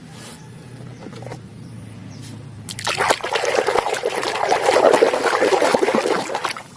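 Water running and splashing onto a muddy plastic toy animal, washing the mud off. It starts suddenly about three seconds in and stops just before the end. Before that there is only a faint hum and a few light clicks.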